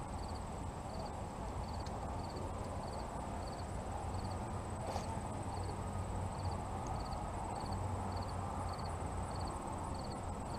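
Wind rushing over the microphone, with a cricket chirping at an even pace of about one and a half chirps a second.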